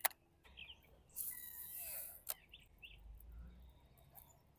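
Baitcasting reel being cranked: a click at the start, then about a second of whirring that stops with another click. Small birds chirp faintly a few times.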